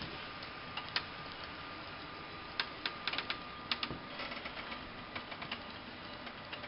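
HO scale model passenger train running on the layout, with light irregular clicks and ticks over a steady hiss; the ticking is thickest in the middle.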